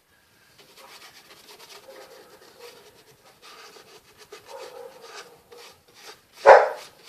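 Paintbrush rubbing and scrubbing paint onto a cardboard surface in irregular strokes, with one short, much louder sound near the end.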